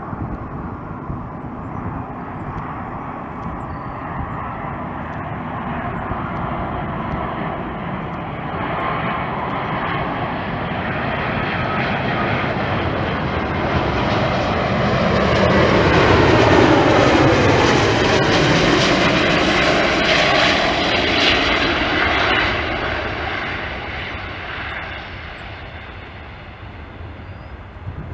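Airbus A380-800's four Rolls-Royce Trent 900 turbofans on final approach, growing louder as the jet flies past low. The engine whine drops in pitch as it goes by, then fades away.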